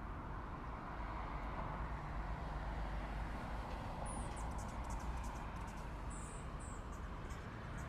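Daytime city ambience: a steady low rumble of distant traffic, with a few short, high bird chirps about halfway through.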